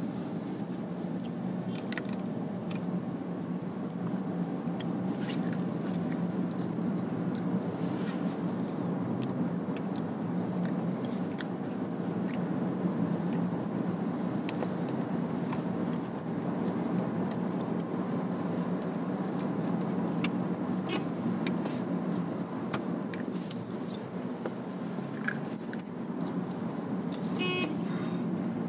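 Steady hum of a car's engine and tyres heard from inside the cabin while driving, with scattered small clicks and a brief rapid clatter near the end.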